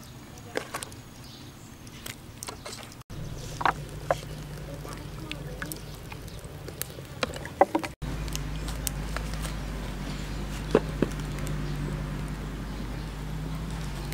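Handling sounds of cooking in a metal pot: hands working marinated meat, then the pot and its lid clinking, heard as scattered sharp clicks and knocks over a steady low hum. The sound changes abruptly twice, near 3 s and 8 s.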